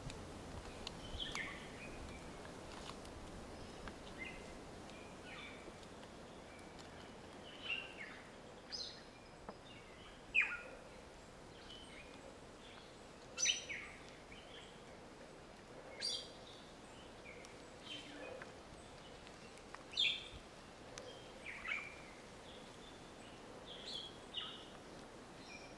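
Forest birds calling: short, sharp calls that slide downward in pitch, one every two to three seconds, over a faint steady background hiss.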